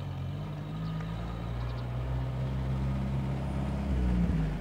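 Vintage open touring car's engine running with a steady low drone as the car drives slowly along, getting a little louder about four seconds in.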